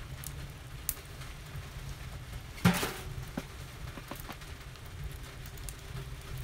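Split logs burning in a wood stove, crackling with scattered sharp pops and one loud snap about two and a half seconds in, over a low steady rumble.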